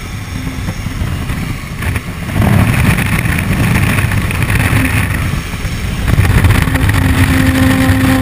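Light aircraft's engine and propeller running steadily, with wind rushing in through the open jump door, growing louder about two and a half seconds in and again near the end.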